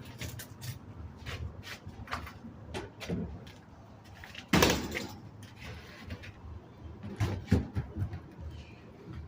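Irregular knocks and clattering, like doors or cupboards being handled, with the loudest bang about halfway through and a few more sharp knocks near the end.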